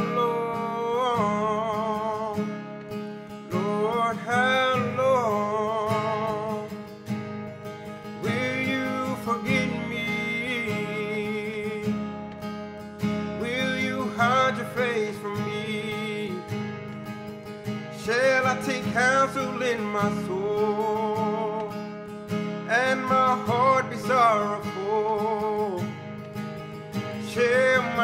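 Man singing a slow worship song and accompanying himself on acoustic guitar; his sung phrases of about two seconds come every four to five seconds over steady guitar playing.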